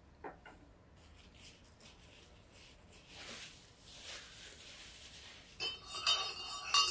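Soft rustle of a paper napkin as hands are wiped, then a spoon stirring in a mug, clinking against it several times with a ringing tone near the end.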